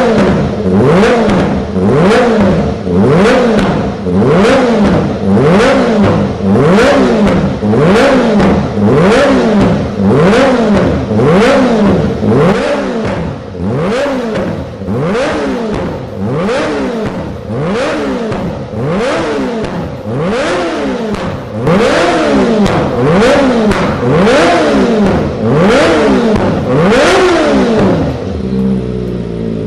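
Kawasaki Ninja ZX-25R's 249 cc inline-four engine being revved hard over and over on a dyno, each rev rising and falling about once a second. Near the end it settles and cuts off.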